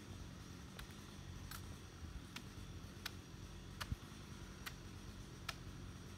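Faint, sharp knocks at a fairly even pace, about one every three-quarters of a second, from hand-tool work at the base of a dead tree being felled, over a steady low rumble.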